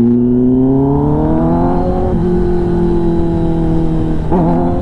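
Kawasaki ZX-10R's inline-four engine through an SC-Project titanium exhaust, accelerating with revs rising for about two seconds, then dropping at a gear change and running at steady revs. A brief dip and recovery comes near the end.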